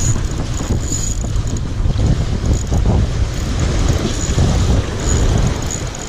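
Wind buffeting the microphone with a heavy low rumble, over sea waves breaking and washing against concrete breakwater tetrapods.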